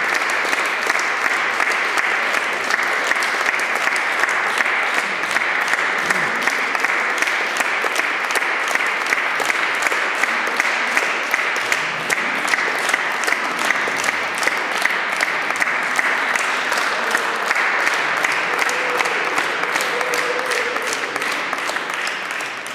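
Audience applause, the clapping falling into a steady, even rhythm.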